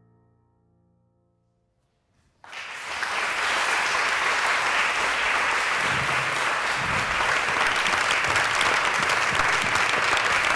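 A held piano chord fades away, and about two and a half seconds in an audience starts applauding, clapping loudly and steadily.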